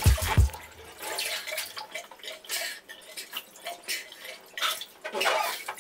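Water sloshing and dripping in a bathtub of ice water as a person moves in it, louder at the start and again near the end.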